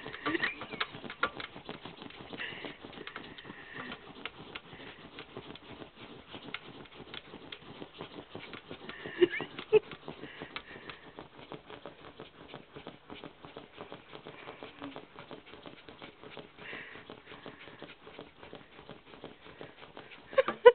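Terrier mix dog scrabbling and sniffing at a plastic gerbil cage: fast, dense clicking and scratching of claws and nose on the plastic. A few louder knocks come about nine seconds in and near the end.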